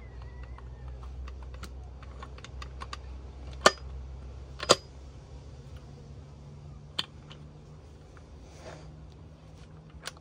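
Steel gearbox parts clicking and clinking as gears and shafts are fitted by hand into the open crankcase of a Suzuki RM85 two-stroke engine: a string of small clicks, with two sharp metallic clacks about four and five seconds in.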